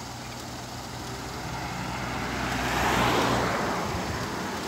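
Manual car's engine running at low revs while the clutch is eased to its bite point to creep forward, a steady low hum. A rushing noise swells and fades about three seconds in.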